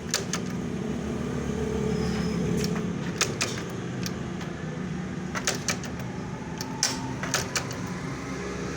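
A motorcycle engine idling steadily, with scattered light metallic clicks and taps over it.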